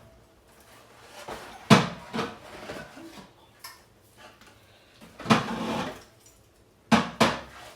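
Drinks bottles and cans knocking and clinking as they are put away in a fridge: a sharp knock about two seconds in, a longer clatter around five seconds in, and two quick knocks near the end.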